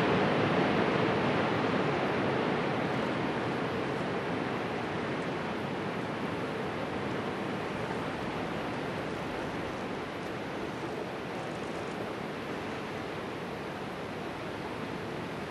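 Dynamite-blasted rock and debris sliding down a steep mountainside: a steady rushing rumble of falling rock that slowly fades.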